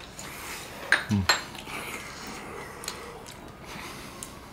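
Wooden spoons scraping and knocking against a metal pan while food is scooped out, with a cluster of sharp clicks about a second in.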